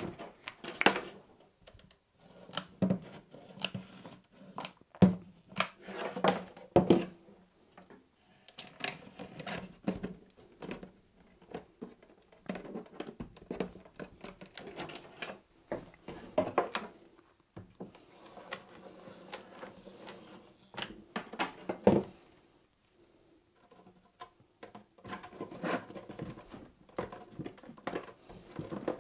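Plastic frame-spacer rakes handled and pressed into polystyrene hive boxes: irregular clicks, taps and light scraping of plastic on plastic and foam, with a few sharper knocks.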